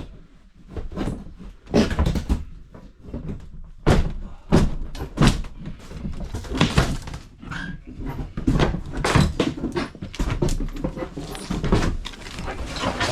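Interior demolition: repeated knocks, bangs and cracks as fittings are pried and pulled apart and dropped.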